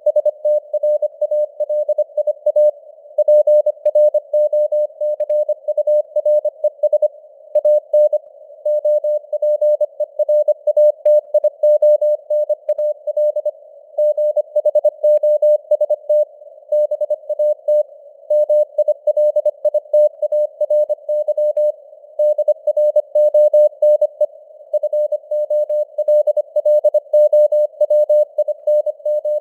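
Morse code (CW) sent at 25 words per minute: a single mid-pitched beep keyed on and off in rapid dots and dashes, over simulated narrow-band radio hiss, the signal strength fading up and down (QSB).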